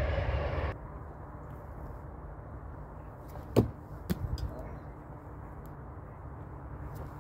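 Steel throwing knives thrown at a wooden target round: a sharp knock of a knife striking the wood about three and a half seconds in, a lighter knock and brief clatter half a second later, and another sharp knock at the end, over quiet outdoor background.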